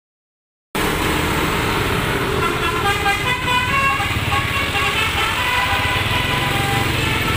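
A bus's multi-tone telolet horn playing a quick tune of stepped notes, over an engine rumble and street traffic.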